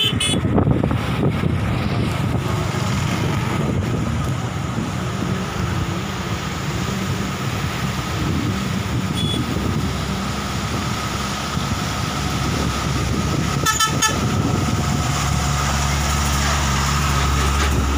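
Road traffic on a bridge: a steady rumble of heavy trucks with horn toots. From about 15 seconds in, a nearby engine idles with a steady low hum.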